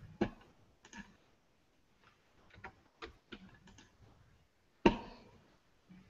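Scattered computer keyboard keystrokes and clicks, a few at a time, with one louder knock about five seconds in.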